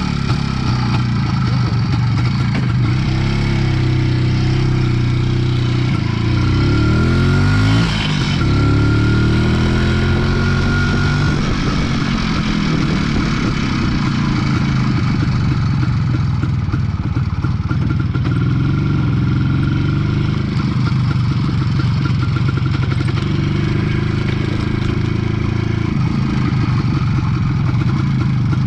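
IZh Planeta 4 motorcycle's single-cylinder two-stroke engine running on the move. Its pitch climbs as it accelerates, drops sharply at a gear change about eight seconds in, climbs again, then settles to a steadier run.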